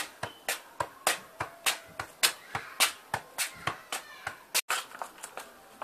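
A football tapped rapidly between a child's trainers on paving slabs, in a quick footwork drill: a steady run of sharp touches, about three a second, growing fainter near the end.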